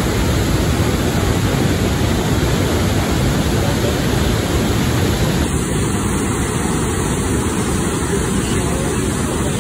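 Niagara Falls crashing onto boulders at its base: a loud, steady rush of falling water.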